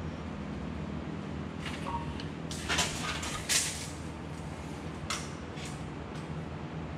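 Steady low workshop hum with a handful of short scraping knocks from a tape measure being handled against the car body, the loudest about three and three and a half seconds in.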